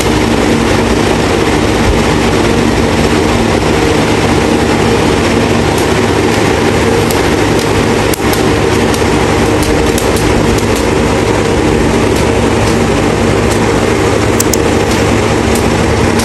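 Electric box fan running steadily close to the microphone: a loud, even rush of air with a constant motor hum underneath.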